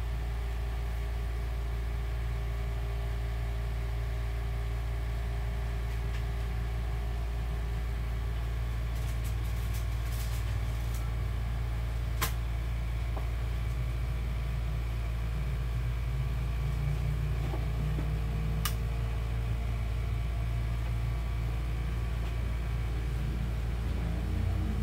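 Steady low mechanical hum, with two faint clicks, one about halfway through and one later.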